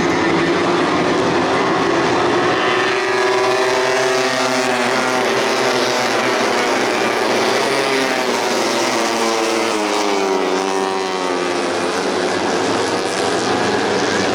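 Tuned 150 cc four-stroke underbone racing motorcycles running at high revs, the notes of several engines overlapping and rising and falling in pitch as they accelerate and back off.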